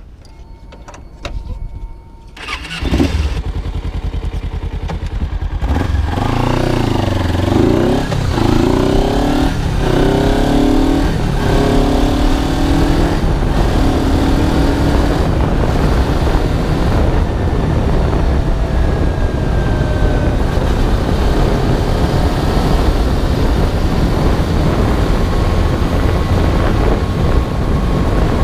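Kawasaki 250 cc parallel-twin sportbike engine starting about two and a half seconds in. The bike then pulls away and accelerates up through several gears, each one a rising whine, before settling into a steady cruise with wind rush on the microphone.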